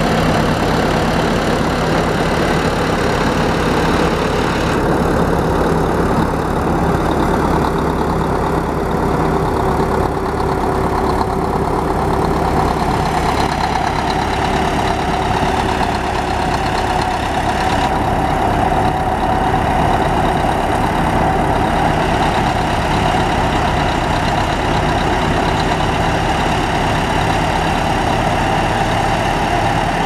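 Heavy diesel engines of tracked earthmoving machines, a Volvo crawler excavator and a Komatsu D50A-15 crawler bulldozer, running steadily under work. The drone continues throughout; its tone changes about five seconds in, and a steady mid-pitched hum comes in past the middle.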